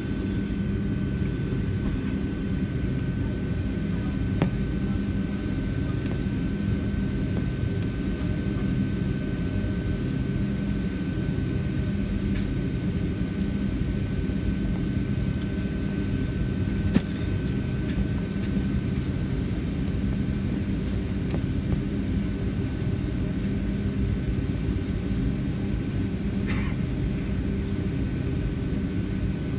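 Boeing 757-300's jet engines running at idle, heard inside the cabin as a steady low rumble with a thin steady whine above it. A couple of light knocks come through, one about 4 seconds in and one near the middle.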